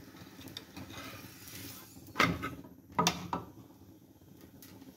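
Metal spatulas knocking against a tawa while a paratha is turned on it: two sharp clanks about a second apart, around the middle, with a few lighter taps. A steady hum from the kitchen exhaust fan runs underneath.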